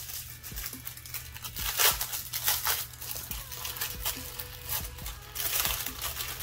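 Lure packaging crinkling and rustling as it is handled, in irregular bursts that are loudest about two seconds in and again near the end.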